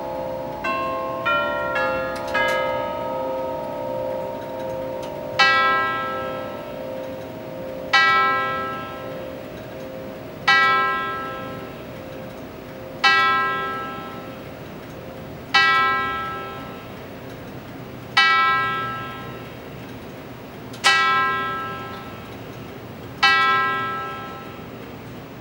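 Elliott of London tubular chime movement striking the hour on its tuned brass chime tubes. The last few quick notes of the quarter chime tune ring out, then eight slow hour strokes about two and a half seconds apart, each a sudden bell-like strike that rings and fades.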